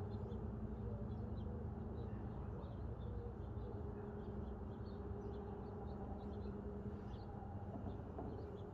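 Birds chirping, many short high chirps scattered throughout, over a steady low hum.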